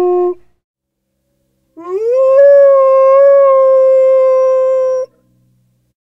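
A dog howling: a previous howl cuts off just after the start, then about two seconds in comes one long howl that slides up at first and then holds a steady pitch for about three seconds before stopping abruptly.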